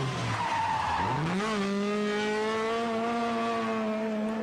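Rally car engine: the revs drop, then climb sharply about a second in and hold steady and high, with tyre noise from the car sliding.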